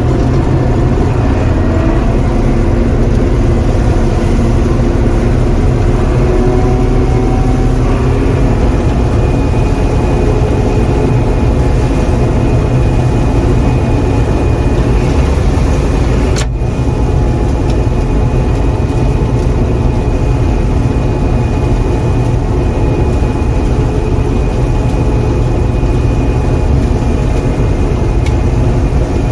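John Deere 4400 combine running steadily under harvest load: a constant low engine drone with the threshing machinery, heard from the ride-along seat. A steady high whine joins in about eight seconds in.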